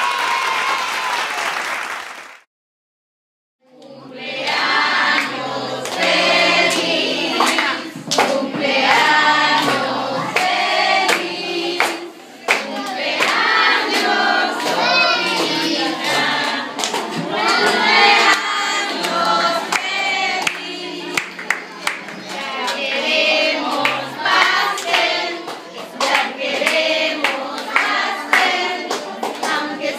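Crowd cheering and children shouting, cut off after about two seconds. After a second of silence, a group of voices sings a song with hand clapping throughout.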